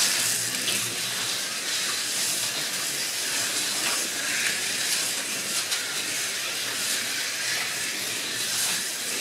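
Slot cars running laps on a routed wooden track, giving a steady high-pitched hissing whir.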